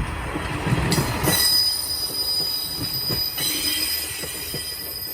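Train running slowly on the rails with its wheels squealing in a steady high screech over a low rumble.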